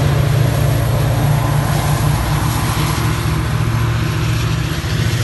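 Metra commuter train running by, a loud, steady low rumble with a rapid flutter underneath.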